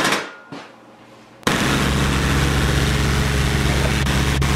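A couple of short metal knocks, then about 1.5 s in a shop air compressor switches on abruptly and runs loudly and steadily with a deep motor hum.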